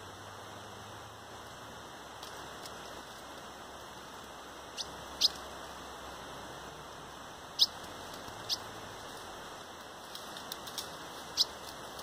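Ultramarine grosbeak (azulão) giving a handful of short, sharp, high call notes, spaced a second or more apart, over a steady background hiss.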